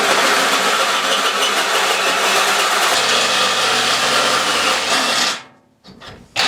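Cordless drill-driver boring through thick steel at low to medium speed under moderate pressure, running steadily and stopping about five seconds in, then a brief burst just before the end.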